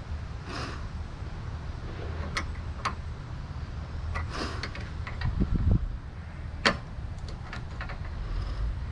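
Scattered clicks and light taps of hand tools and metal parts being handled while fitting a replacement grease fitting on a lawn mower, with a low thud about five and a half seconds in, over a steady low hum.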